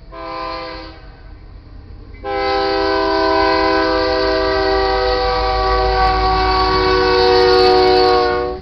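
Air horn of BNSF 5123, a GE C44-9W diesel locomotive, heard from inside a car: a short blast, then a long steady blast held as the locomotive reaches the crossing, cutting off sharply. These are the closing short and long of the standard grade-crossing horn signal.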